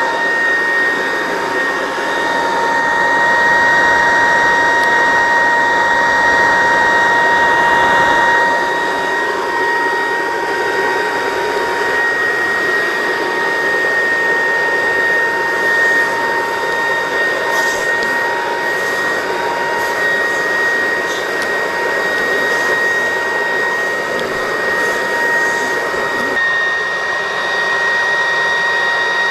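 A small electric motor running steadily, a rushing air-like noise with a constant high whine over it.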